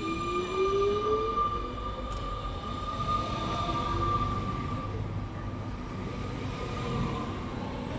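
Mittelrheinbahn Siemens Desiro ML electric multiple unit running past close by. Its traction motors whine in a tone that rises over the first couple of seconds as it gathers speed, over a steady rumble of wheels on rail; a higher tone fades out about five seconds in.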